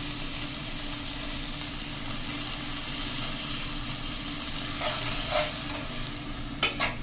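Onion, tomato and ginger-garlic masala sizzling steadily in hot oil in a pan with a little water just added. It is stirred with a spatula that knocks against the pan a few times in the last two seconds.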